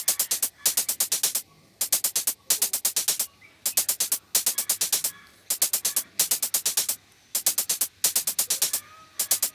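Electronic background music: runs of rapid, sharp drum-machine hits with short gaps between them.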